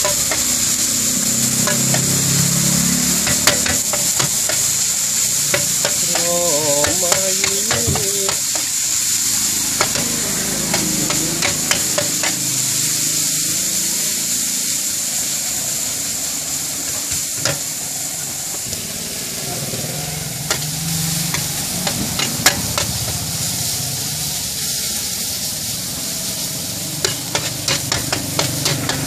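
Noodles and bean sprouts sizzling in hot oil on a large metal wok while a metal spatula scrapes and taps the pan as they are stir-fried, with a quick run of spatula taps near the end.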